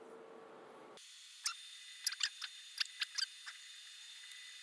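A computer keyboard being typed on: a quick, irregular run of about a dozen sharp key clicks, starting about a second and a half in. Before that, a faint steady hum cuts off suddenly about a second in.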